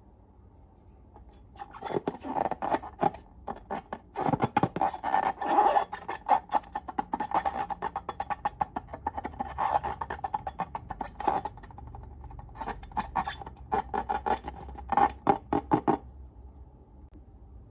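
Slime being squeezed and poked, giving a quick, irregular run of clicks and pops that starts about a second and a half in and stops suddenly near the end.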